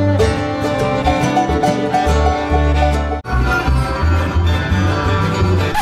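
Bluegrass string band playing, with fiddle, acoustic guitar and upright bass over a steady bass line. About three seconds in the music breaks off abruptly and a new bluegrass passage starts.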